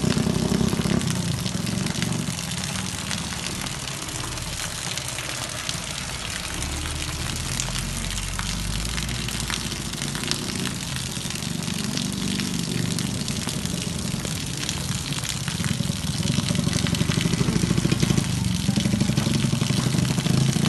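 Steady hiss of rain and running water on a wet street. A motorcycle engine grows louder over the last few seconds as it approaches.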